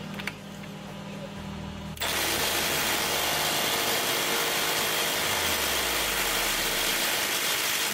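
Milwaukee M12 Fuel cordless impact wrench on its highest setting hammering at a seized steering-gear bolt through a 9/16 impact socket. It starts about two seconds in, runs steadily for about six seconds and stops abruptly, and the bolt does not budge. It is loud.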